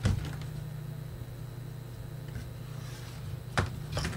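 Knocks from a laptop motherboard being handled and turned over on the bench: a sharp knock at the start, then three short knocks near the end, over a steady low hum.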